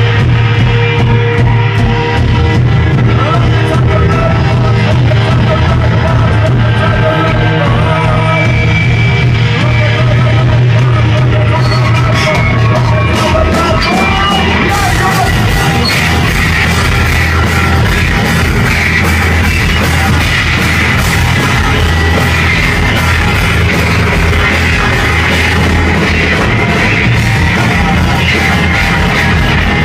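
Rock band playing live and loud, heavy on bass, with some shouted vocals. About halfway through the music fills out and gets brighter as cymbals and guitars come in harder.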